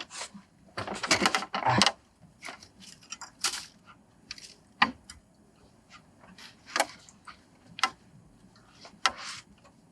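Scattered clicks, knocks and rustles of things being handled and set down, irregular and a second or so apart, with a sharper click about five seconds in and another near seven seconds.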